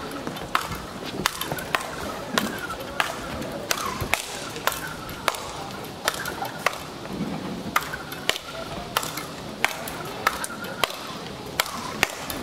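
Speedball paddles hitting the ball tethered to the central pole in a fast rally: a sharp crack roughly twice a second.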